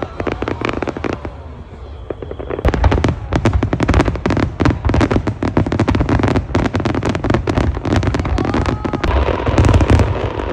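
Aerial fireworks shells bursting in quick succession: dense bangs and crackling, many per second, growing thicker and louder about two and a half seconds in.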